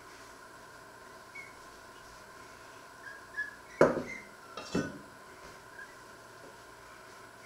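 A porcelain cup set down on a wooden cutting board: two sharp knocks a little under a second apart, the first louder, the second ringing briefly.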